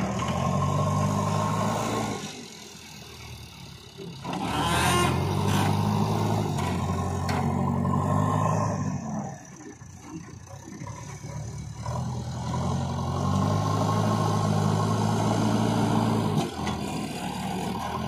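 JCB backhoe loader's diesel engine revving up hard three times and dropping back to a lower run in between as the front bucket works a sand pile. A short hiss sounds about five seconds in.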